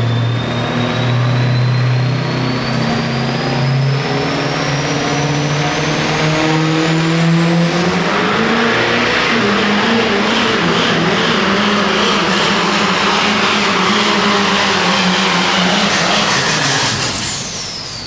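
Turbo-diesel pickup truck pulling the sled at full power. The engine runs hard while a high turbo whistle climbs steadily in pitch for about eight seconds and then holds high. Near the end the whine falls away and the engine quiets as the truck comes off the throttle at the end of the pull.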